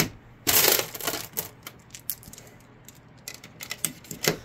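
UpLULA magazine loader being worked on a 9mm Glock magazine: plastic clicking and brass cartridges clinking. A louder rattle of metal and plastic comes about half a second in, then a run of sharp clicks.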